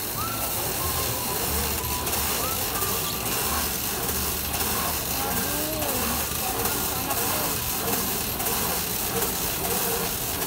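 Luggage-wrapping machine running, its turntable spinning a suitcase as plastic stretch film pulls off the roll and wraps around it: a steady hiss that starts abruptly and stops near the end.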